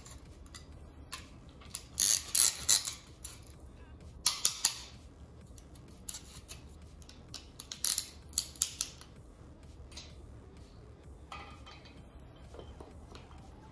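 Sharp metallic clicks and clinks in three short clusters, about 2 s, 4.5 s and 8 s in, from a band-type piston ring compressor being clamped, worked and released as a piston is fitted into a cylinder bore of a V8 engine block.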